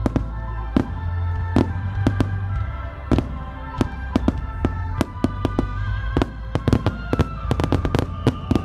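Aerial firework shells bursting with sharp bangs, coming thick and fast in the second half, over music with long held tones played for the show.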